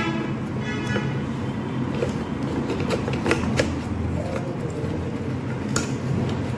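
Small clicks and knocks of pliers and plastic parts as a replacement switch is fitted into an electric kettle's handle, with a brief squeak about half a second in. A steady low hum runs underneath.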